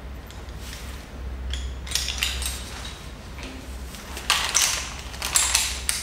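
Metal rope-access hardware (carabiners, ascenders and a descender) clinking, rattling and scraping as it is handled on the ropes during a changeover, with a cluster of louder clatters between about four and five and a half seconds in.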